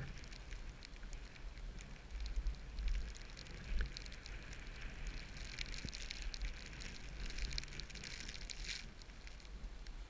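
Skis sliding over fresh snow with a crackling hiss, stronger in the middle and easing near the end, over a low rumble.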